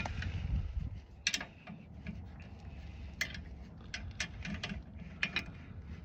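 A few separate sharp metal clicks from a socket ratchet and the steel latch parts as the claw-latch bolt on a snowplow hitch is snugged down, over a low steady rumble.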